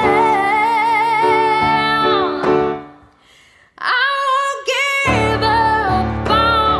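A song with a woman singing sustained notes with vibrato over instrumental backing. The music drops away briefly about three seconds in, and the voice returns with a fuller bass line.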